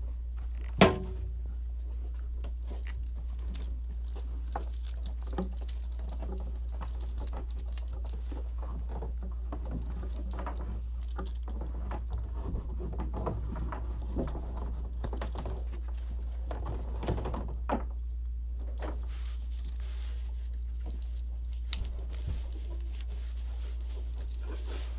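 Scattered small clicks, taps and light rattles, like objects being handled, with one sharper click about a second in, over a steady low hum.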